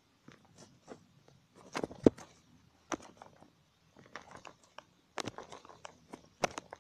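Dry grass and leaf litter rustling and crackling against a handheld camera as it is pushed through them, in irregular bursts of short clicks, with a sharp knock about two seconds in.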